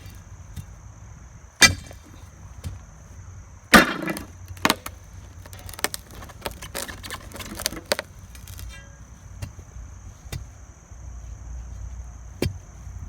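Sledgehammer blows knocking a concrete footing off a fence post: two hard strikes about a second and a half in and near four seconds, then a scatter of lighter knocks and clatter.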